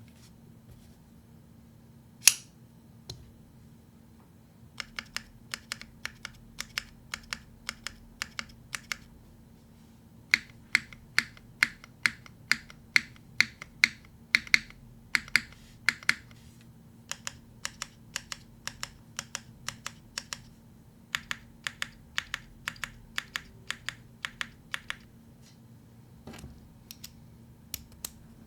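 Iron165 gasket-mount mechanical keyboard with an aluminum plate and lubed Hyperglide Black linear switches, keys pressed one at a time at about three keystrokes a second in runs of several seconds. One louder clack comes about two seconds in.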